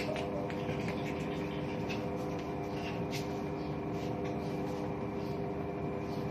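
Toshiba washing machine running: a steady mechanical hum made of several held tones over a noisy whir, with a few faint ticks.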